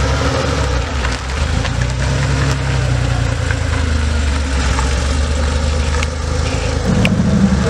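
Classic Porsche 911's air-cooled flat-six running steadily at low revs as the car rolls slowly past and pulls away, with light crunching of tyres on gravel. Near the end another car's engine comes in, a little louder.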